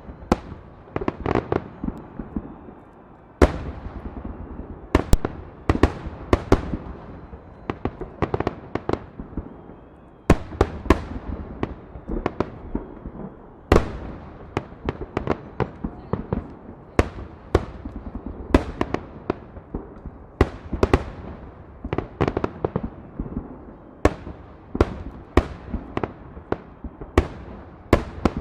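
Salute fireworks: a long, irregular run of loud bangs from shells bursting, often several in quick succession, each trailing off in a short echo.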